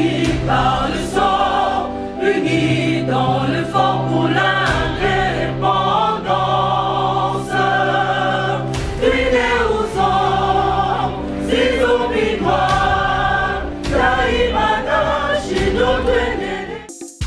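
Intro theme music: voices singing a melody over a sustained low bass note. It cuts off abruptly near the end.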